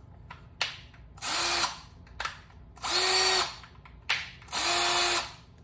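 Hart 20V cordless hammer drill run with no load in three short bursts. Each burst is about half a second of steady motor whine and follows a sharp click.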